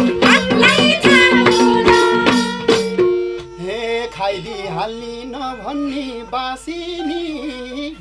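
Nepali dohori folk music: singing over madal drumbeats with harmonium and violin. About three seconds in, the drumbeats stop and a softer instrumental passage with a wavering melody carries on.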